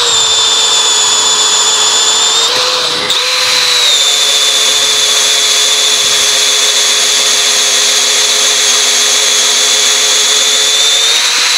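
Milwaukee 2802 cordless drill boring a 7/8-inch auger bit through a wooden board: a steady motor whine under load. It dips and wobbles briefly about two and a half seconds in, runs steadily again, and rises slightly in pitch near the end.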